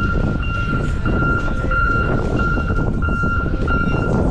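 A vehicle's reversing alarm beeping steadily, about twice a second, over the low rumble of a heavy vehicle's engine.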